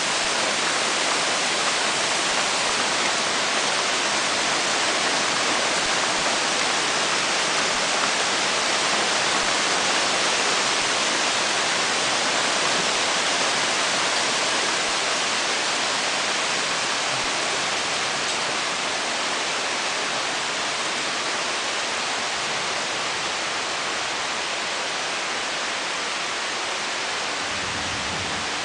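Steady rain falling on the trees and foliage, a dense, even hiss with no breaks, growing a little quieter in the second half.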